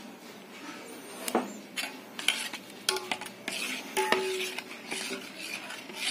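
Stainless-steel ladle stirring thin sago (sabudana) batter in a steel pot, scraping and clinking against the metal, starting about a second in. A few clinks ring out briefly about three and four seconds in.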